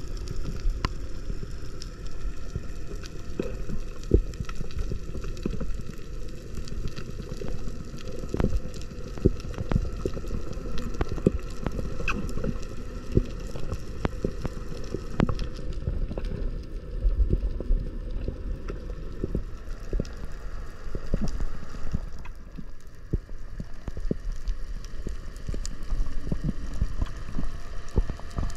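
Underwater sound through an action camera's housing: a steady, muffled low rumble of moving water, with scattered short clicks and crackles.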